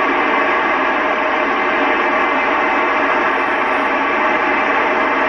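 Steady loud static hiss from an FM amateur radio receiver tuned to the ISS downlink on 145.800 MHz, squelch open with no signal coming through: the space station has stopped transmitting between its answers.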